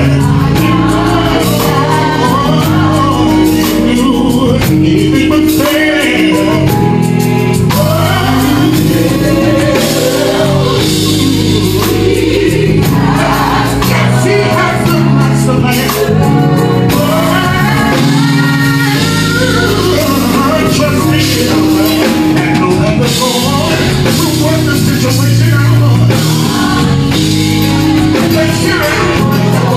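Gospel song sung live by singers over band accompaniment.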